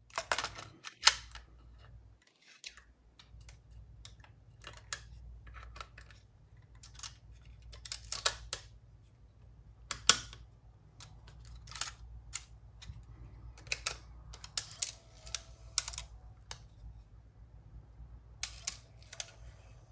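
Irregular small clicks and taps of an Aiwa HS-PL777 cassette walkman's plastic and metal casing being handled and pressed together by hand, with the sharpest clicks about a second in and about ten seconds in.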